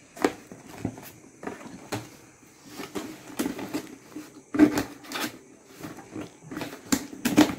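Cardboard takeaway box being opened by hand: a knife cutting the seal on the handle, with scattered rustles, scrapes and knocks of the cardboard flaps. The loudest knocks come about four and a half seconds in and again near the end.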